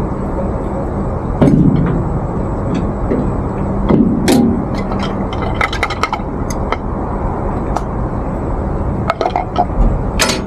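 Scattered knocks and clinks from a small hand mortar and pestle being handled, a cluster of quick strikes about halfway through, over a steady low engine hum.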